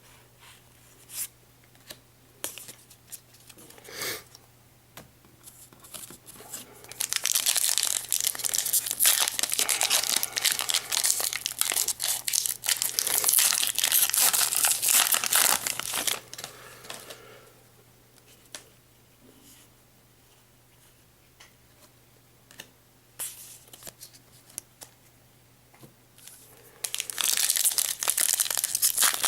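Foil booster pack wrappers being torn open and crinkled, in two loud bouts: a long one from about 7 to 17 seconds in and another starting near the end. Scattered light clicks and ticks come in the quieter stretches between.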